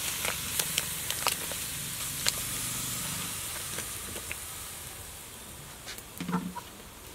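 A large pot of sticky rice boiling with a steady hiss that fades gradually, while cubes of raw taro root are tipped in from a plastic basket, splashing and knocking with several sharp plops in the first two or three seconds.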